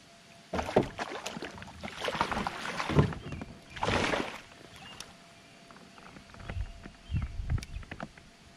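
A hooked fish splashing and thrashing in a landing net at the side of a kayak: irregular splashes, the biggest about four seconds in, then a few dull thumps near the end.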